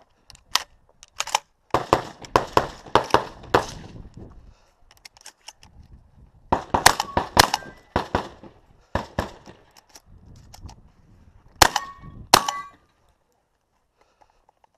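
A shotgun fired in quick bursts of shots. Several shots are followed by a short metallic ring from struck steel targets.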